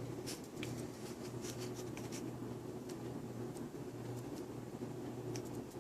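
Quiet room tone: a steady low electrical hum with faint scattered clicks and light scraping sounds.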